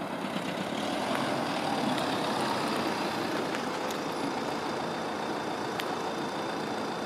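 Vauxhall Insignia estate car moving slowly at close range, its engine and tyres giving a steady low running noise that swells slightly as it passes.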